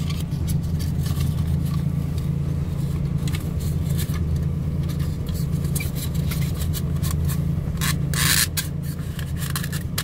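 Hands working the horn contact parts in a steering wheel hub: scattered small clicks and scrapes of plastic and metal, with a louder scrape about eight seconds in, over a steady low hum.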